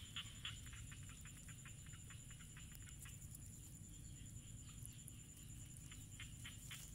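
Faint rapid rhythmic clicking that quickens, dies away about three seconds in and starts again near the end, over a steady faint high-pitched whine.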